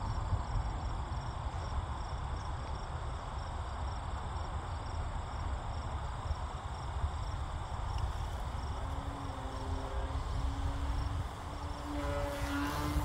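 Electric motor and propeller of a ParkZone Extra 300 RC plane, heard as a hum that fades in from about nine seconds in as the plane comes closer, wavering in pitch near the end with throttle changes. Under it there is a steady low rumble and faint, evenly repeating high chirps.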